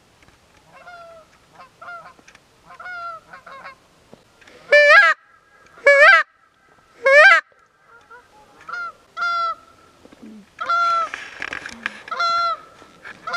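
Canada goose honks and clucks blown on a hunter's goose call to draw in flying geese: a run of softer two-note honks, then three loud close honks in quick succession, then more honks near the end.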